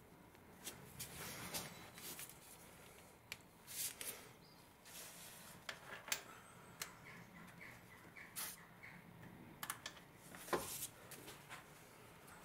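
Faint, scattered clicks and knocks of gloved hands and tools working around a freshly fitted ribbed alternator belt and its tensioner in the engine bay, with a few short squeaks near the middle.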